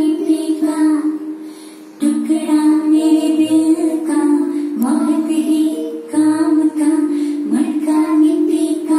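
Song with a child's singing voice over instrumental backing, sung in short phrases, with a brief drop in level before a new phrase starts about two seconds in.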